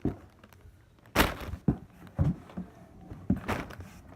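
Merchandise being handled and unpacked from a shipping package: several short knocks and rustles, the loudest a little over a second in.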